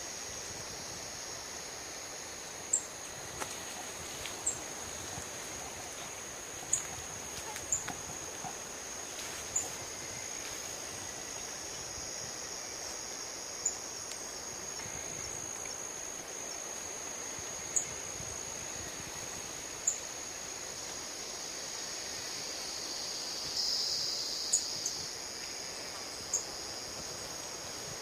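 Sharp-billed treehunter giving short, sharp, high-pitched call notes at irregular intervals of one to a few seconds, with a brief fuller high phrase about 24 seconds in. A steady high-pitched insect drone runs underneath.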